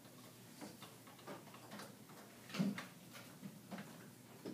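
Faint scattered clicks and taps of small objects being handled, with one louder knock about two and a half seconds in.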